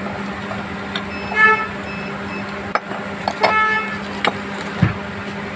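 Two short toots of a vehicle horn, about two seconds apart, over a steady low hum, with a few light clicks of metal parts being handled on a workbench.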